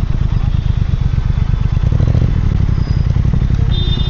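Triumph Speed Twin 1200's parallel-twin engine and exhaust running steadily, with a rapid low pulsing exhaust note.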